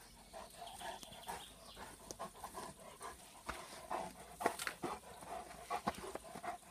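German shepherd pawing at loose dirt and a frisbee, with irregular scrapes and taps, while panting.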